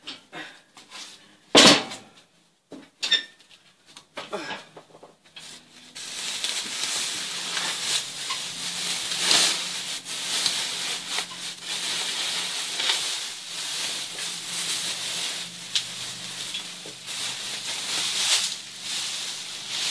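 A few scattered knocks, one of them sharp, then from about six seconds in a continuous rustling with many small crackles as pink fiberglass insulation batts are pulled down from between ceiling joists.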